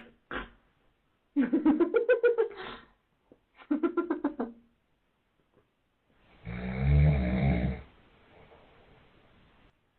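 A man snoring, with one loud, low, rattling snore in the second half followed by a faint breath out. Earlier, a baby gives two short, pulsing fussy cries.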